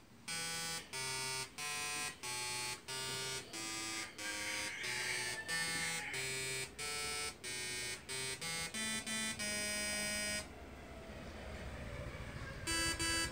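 Arduino-interrupted slayer-exciter Tesla coil playing a melody: a run of short pitched notes one after another, each cut off cleanly. About three-quarters of the way through, the notes stop for about two seconds, leaving a faint hiss, then the tune resumes.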